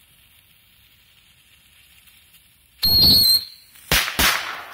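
Firecracker going off: a loud, shrill whistle with a wavering pitch lasting about half a second, then two sharp bangs about a third of a second apart.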